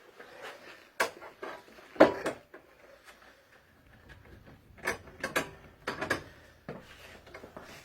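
Scattered knocks and clicks of bolts and a gas-lift piston being handled and fitted to a bed frame by hand. The loudest knock comes about two seconds in, with a cluster of lighter clicks a few seconds later.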